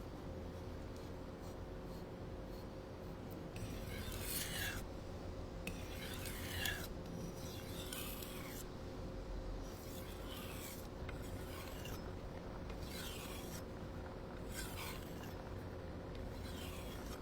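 A blade being sharpened: a steady scraping rub, with firmer strokes about every one and a half to two seconds.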